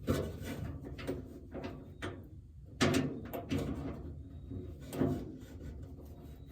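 A few separate metallic knocks and clinks, with light rattling between them, as a wrench and socket are fitted onto a truck-bed toolbox mounting bolt.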